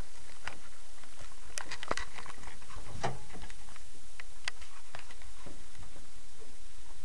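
Handheld camera being moved about: irregular light clicks and rustles over a steady hiss.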